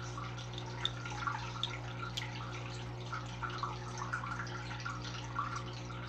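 Aquarium equipment running: a steady low hum and a faint trickle of water. A few light ticks come from fingers tapping Daphnia eggs out of a small container.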